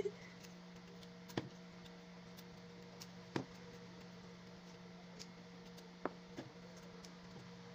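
Fresh green beans snapped in two by hand: a few short, sharp snaps spread a couple of seconds apart, over a steady low hum.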